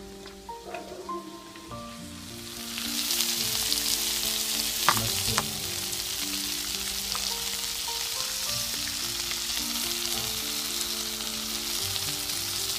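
Sausage and onions sizzling in butter in a pot; the sizzle swells loudly about three seconds in and then holds steady, with a single utensil clink near the middle.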